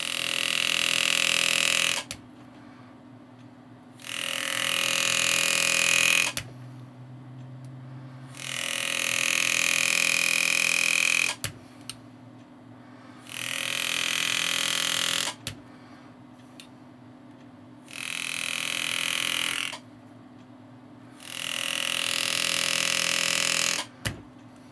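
A power-assisted hand engraving graver cuts into a steel grip cap in six bursts of about two seconds each. Each burst swells and then cuts off sharply, with short pauses between, as second cuts are run along the scroll leaves to deepen their definition.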